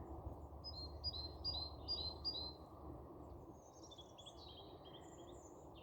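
Songbirds singing: one bird repeats a short falling note about five times, then a higher twittering phrase follows, over a low steady background hum.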